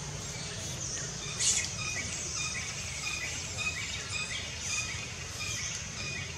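Outdoor forest ambience: birds making many short chirps, with one louder call about a second and a half in, over a steady high insect drone and a low hum.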